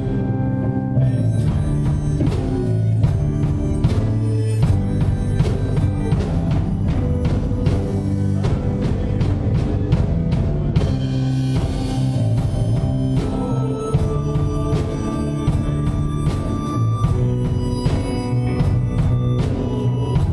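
Live church praise band playing a song, with guitar and a drum kit keeping a steady beat.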